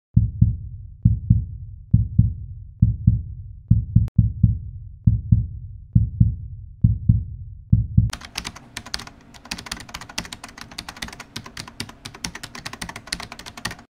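Heartbeat sound effect: paired low thumps a little under once a second. About eight seconds in, they give way to a dense crackling of sharp clicks and ticks.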